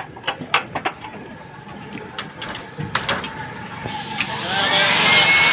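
Scattered knocks and clicks of metal and plastic parts as the scanner unit of a dismantled photocopier is handled. Near the end a louder noise swells in, with a rising whine.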